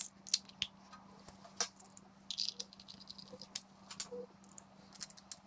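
Light, scattered metallic clicks and taps as a polished points cover is fitted back onto a Yamaha XS650 cylinder head, over a faint steady hum.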